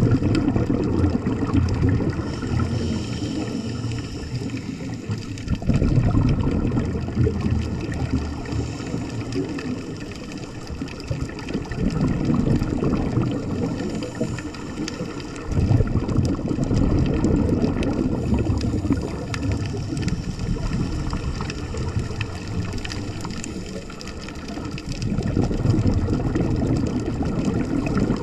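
Scuba diver's exhaled bubbles heard underwater: the regulator releases a gurgling burst of bubbles every several seconds, over a steady underwater hiss.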